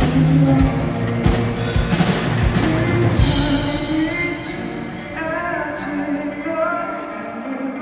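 Live band music with drum kit and singing. The drums stop about three seconds in, and the music carries on more softly with a sung melody.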